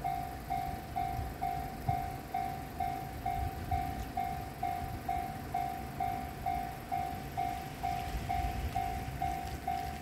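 Japanese electronic level-crossing alarm ringing in a steady, even rhythm of about two rings a second, warning that a train is approaching, over a low rumbling noise.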